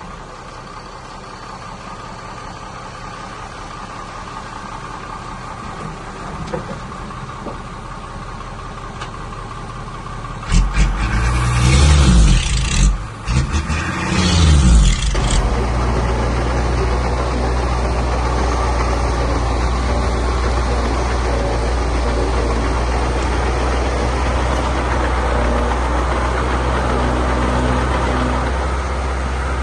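Heavy diesel earthmoving machinery running. About ten seconds in, an engine revs loudly for about five seconds, its pitch rising and falling, then settles into a steady, louder low drone.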